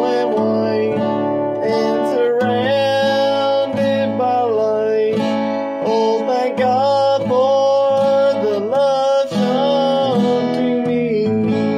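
A man singing a slow gospel song in long held notes with vibrato, accompanied by a strummed acoustic guitar.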